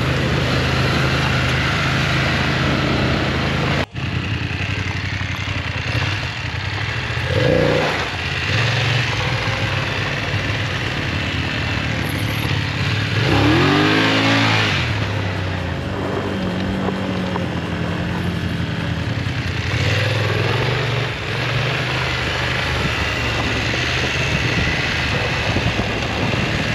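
Motorcycle engine running under way with wind and road noise. Around the middle the engine pitch rises and falls as it revs or passes by.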